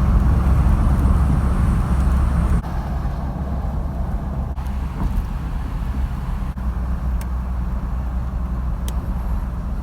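Cabin noise of a Peugeot 306 XSi driving on a highway with a window open: a steady low road and engine rumble under a rush of wind. It drops a little in level about two and a half seconds in.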